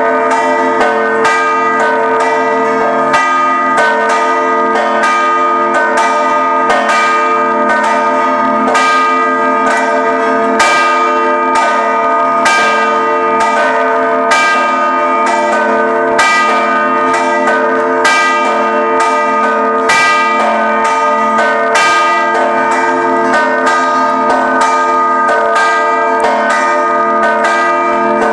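Haz-Zabbar church bells ringing a procession peal: several bells of different pitches struck again and again in quick succession, their tones ringing on over one another.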